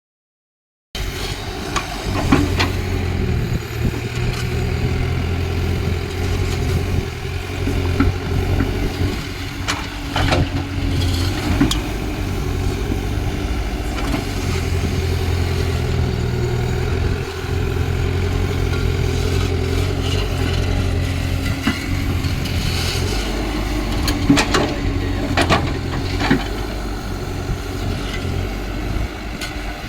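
Caterpillar excavator's diesel engine running under changing load, growing louder and softer in stretches, with occasional sharp knocks.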